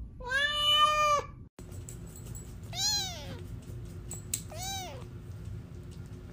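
A cat's long, loud meow held at a steady pitch, then two shorter, higher kitten mews about two seconds apart, each rising and falling in pitch.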